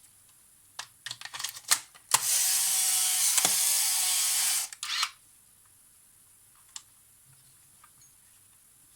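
Polaroid SLR 680 instant camera being fired: a few sharp clicks, then its motor whirs steadily for about two and a half seconds as it runs through its mirror and film-drive cycle, ending in a couple of clicks.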